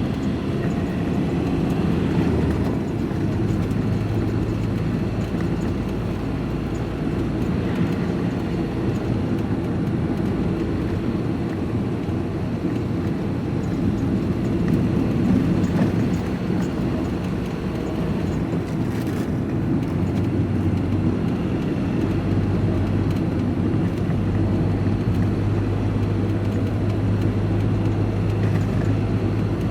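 Diesel vehicle's engine and road noise heard from inside the cab while driving at a steady pace: a continuous low drone with a steady hum that swells for a few seconds early on and again through most of the second half.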